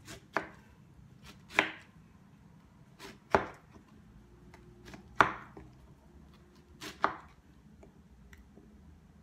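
Kitchen knife slicing through peeled pineapple and striking a wooden cutting board: about five separate sharp cuts, a second and a half to two seconds apart.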